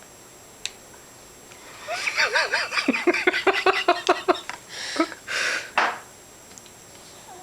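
Baby giving a rapid string of short, wavering vocal sounds for about two and a half seconds, then a couple of breathy bursts: a dramatic reaction to tasting peas for the first time.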